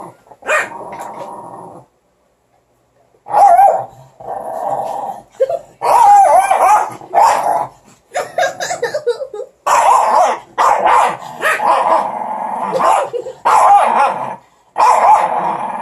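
Small dogs growling, barking and yipping in bursts as they play-fight, with a brief lull about two seconds in.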